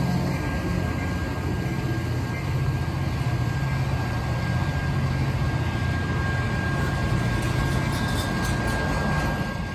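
Caltrain double-deck passenger coaches rolling past at close range: a steady, loud rumble of wheels on rail that drops off right at the end as the train clears.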